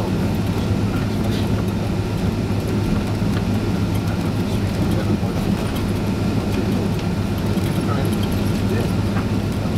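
Steady cabin noise inside a Boeing 767-300 on the ground: a low hum and rumble from its Rolls-Royce RB211 engines running at low power, with faint light rattles in the cabin.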